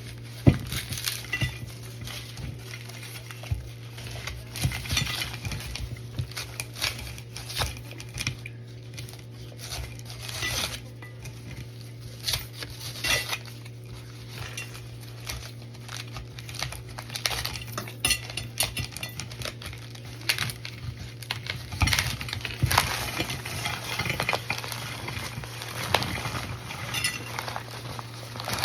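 Scattered light clicks, taps and rustles of things being handled, over a steady low hum.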